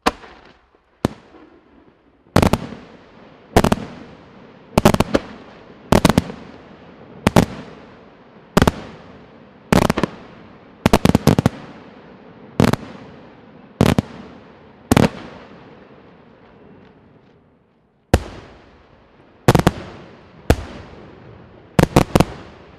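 La Rosa Fireworks' aerial shells bursting overhead one after another, a sharp bang about every second, each trailing off in a fading rumble, some coming in quick pairs or triplets. The bangs pause for about two seconds near three-quarters of the way through, then start again.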